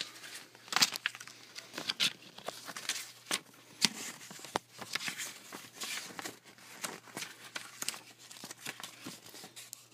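Paper and loose items being rummaged through by hand, giving irregular rustling, crinkling and knocks, with handling bumps on the microphone.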